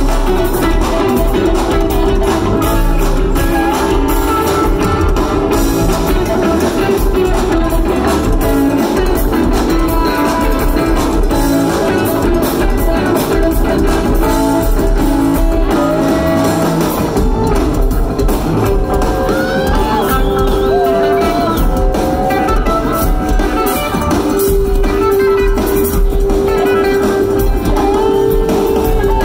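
A live band playing, with acoustic and electric guitars and a lap steel guitar, heard from the audience.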